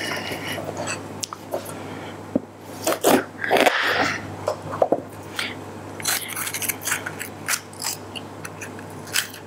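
Kitchen knife cutting a raw yellow bell pepper on a plastic cutting board: crisp crunches as the blade goes through the flesh, and light knocks of the blade on the board. A longer scraping crunch comes about three to four seconds in.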